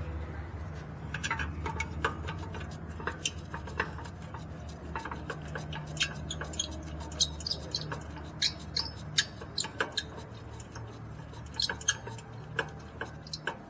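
Irregular light metallic clicks and clinks as an Infiniti FX35's rear brake caliper and bracket are handled and fitted back onto the rear knuckle, over a steady low hum.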